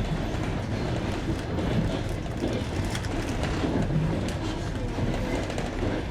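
Passenger train running on jointed rails, heard from inside the carriage: a steady rumble with the wheels clacking over the rail joints.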